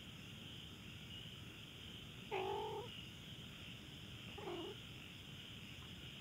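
A domestic cat meows twice: a short, louder meow a little over two seconds in, then a fainter, falling one about two seconds later. A steady chirring of night insects runs underneath.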